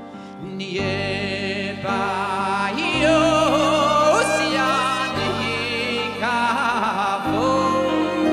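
Male singer performing live into a microphone over a backing band, his voice wavering with vibrato and rising to its loudest about three seconds in.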